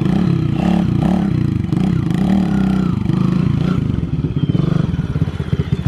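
Kawasaki KLX110 pit bike's small single-cylinder four-stroke engine running through a stock exhaust as it is ridden. The revs rise and fall about once a second, then the throttle turns choppy in the second half.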